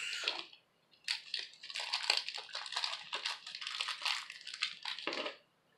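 Crackling, crinkling rustle of something being handled, made of many fine clicks. It starts about a second in and stops shortly before the end.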